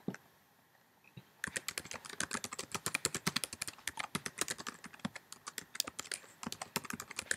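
Typing on a computer keyboard: a rapid run of keystrokes starting about a second and a half in, after a single click at the very start.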